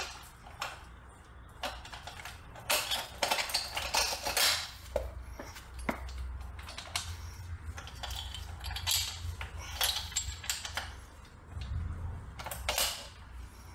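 Irregular metal clinks and scrapes as a motorcycle rear axle is worked through the swingarm, axle slider and wheel hub by hand.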